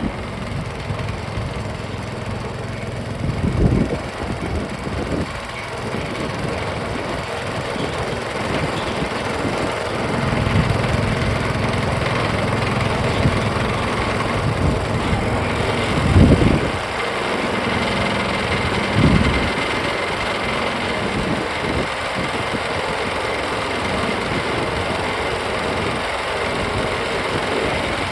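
Gas engine of a gold trommel wash plant running steadily, driving the rotating trommel drum. Three louder thumps or clunks break through the steady running.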